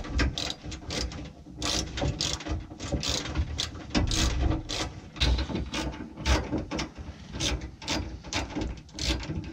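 Hand ratchet clicking in quick, uneven runs as self-tapping screws are tightened.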